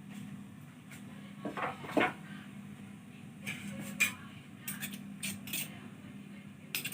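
A spoon scraping and clinking against a pan, scooping out the last of the chicken filling, in a run of short strokes with sharp knocks about two and four seconds in.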